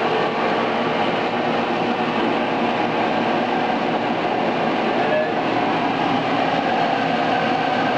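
Steady rush of air with a faint motor hum from the test blower pushing air up a sheet-metal duct, the airflow that builds the back pressure read on the gauge.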